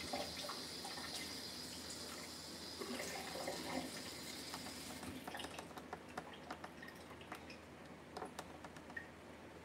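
Water running from a kitchen tap, a steady hiss that is turned off about halfway through, followed by scattered light clicks and taps of utensils.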